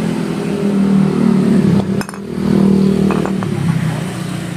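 A motor vehicle engine running, its pitch and level swelling and easing, with a sharp click about two seconds in and a couple of light metallic clinks a second later.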